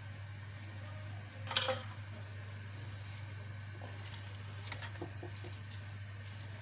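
Wooden spatula stirring raw mutton, sliced onions and water in a pot, with one sharp knock against the pot about a second and a half in and a few lighter taps later, over a steady low hum.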